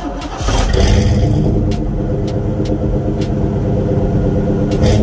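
Pickup truck engine running through a single knockoff Flowmaster 10 series muffler, revved so the exhaust gets much louder about half a second in, then holding a steady deep note.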